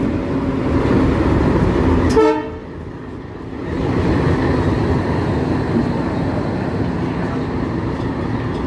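Passenger train running past with a steady rumble, sounding a brief horn toot about two seconds in; the noise drops for a moment and then resumes.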